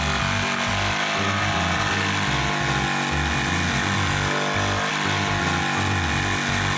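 Jigsaw fitted with a laminate-and-parquet blade cutting steadily through board, under background music with a steady beat.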